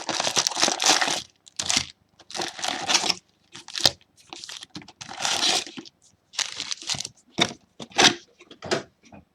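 Plastic wrapping on trading-card packaging being crinkled and torn open, in irregular bursts of rustling with short pauses between.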